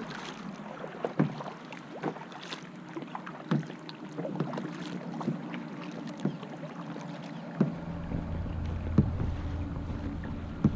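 Kayak paddling: irregular paddle splashes and light knocks against the hull over moving water. A low wind rumble on the microphone joins about eight seconds in.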